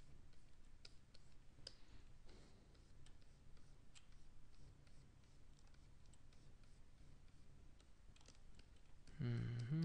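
Faint, irregular clicks and taps from a graphics-tablet pen and computer keys while sculpting, over a low steady room hum. Near the end a man gives a short hum, the loudest sound here.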